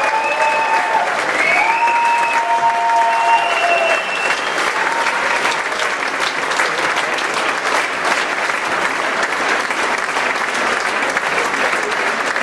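A large hall audience applauding steadily at the end of a show, with a few long held cheers over the clapping in the first four seconds.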